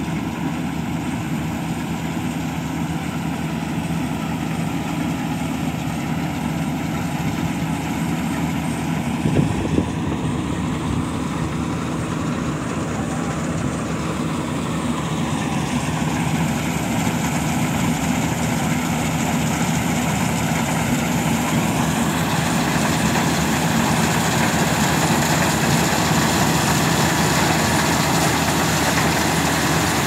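Rice combine harvester (Jaffer GS2-F) running steadily as it cuts ripe rice, its engine and threshing machinery growing gradually louder as it draws near. Two brief sharp knocks come about a third of the way through.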